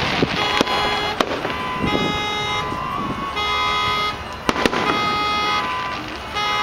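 Aerial fireworks shells bursting: several sharp bangs, with a quick pair of them a little past the middle. Steady held tones sound in between the bangs.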